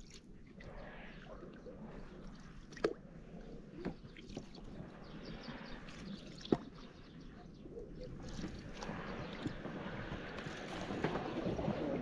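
Small rowboat being moved through the water: splashing and dripping from the oars, with a few sharp knocks, growing louder over the last few seconds.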